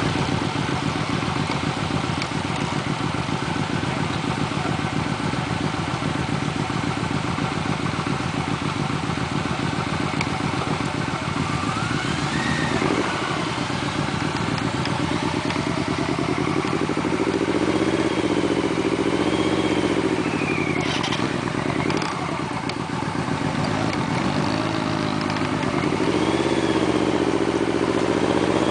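Motorcycle engine running while riding, steady for the first half and then rising and falling in pitch as the throttle opens and closes, over steady wind noise.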